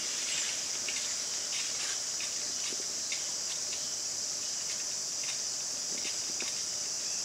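A steady high-pitched insect chorus, with scattered faint rustles and ticks as a nylon flysheet is handled and adjusted.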